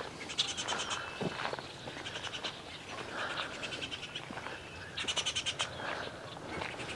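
Several songbirds singing and calling together, with a fast, high, rattling trill near the start and again about five seconds in.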